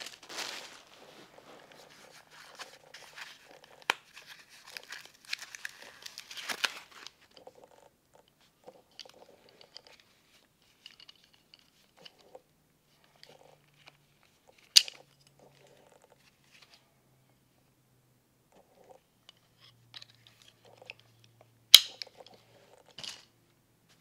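Clear plastic packaging crinkling and crunching as it is handled, dense for the first several seconds and then only in sparse small rustles. Three sharp clicks or taps stand out, about 15 s in, then about 22 s in (the loudest) and 23 s in.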